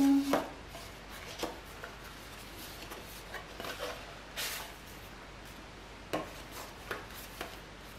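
Paper rustling and soft taps as the pages and a folded paper panel of a handmade journal insert are handled, turned and unfolded: a string of short, separate rustles, the loudest about four and a half seconds in.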